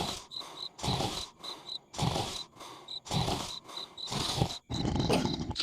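Cartoon snoring: a noisy, rasping snore about once a second, with a high chirp repeating a few times a second behind it.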